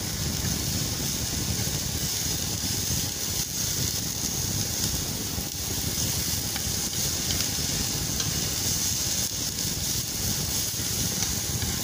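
Sliced onions and chopped garlic sizzling as they fry on a flat round pan, pushed around now and then with a spatula: a steady frying hiss with a low, steady rumble underneath.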